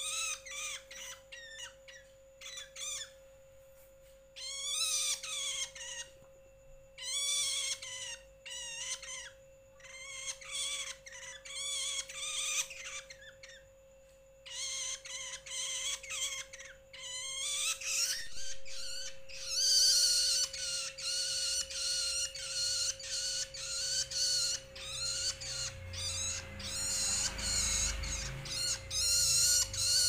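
Juvenile long-tailed shrike giving repeated begging calls, gaping with wings fluttering. The calls come in short bunches with pauses at first, then run almost unbroken and quicker from about two-thirds of the way through. A steady faint hum sits underneath.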